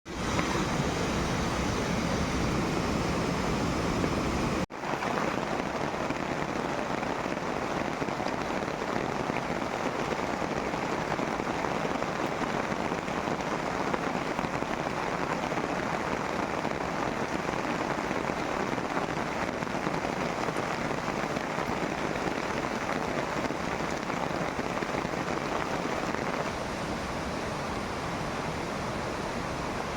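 Steady rain falling, an even hiss, with a brief dropout about five seconds in and a slight drop in level near the end.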